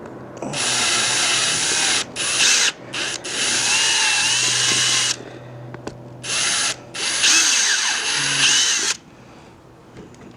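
Power drill with a step drill bit cutting out a wheel's centre bore, run in about five bursts of up to two seconds with short pauses between. A wavering high squeal rides on the cutting noise.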